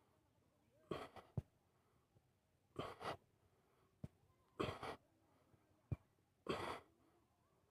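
A man breathing hard while doing push-ups, close to the microphone: four forceful breathy puffs about two seconds apart, one per push-up, with a few sharp clicks between them.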